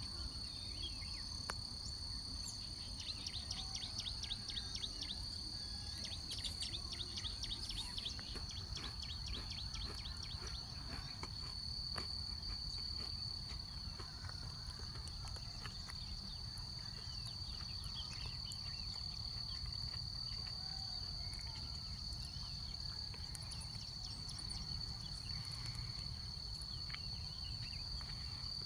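Insects droning in one steady high note, with a fast trill of rapid ticking notes from about 3 to 11 seconds in and a few faint scattered chirps, over a low background rumble.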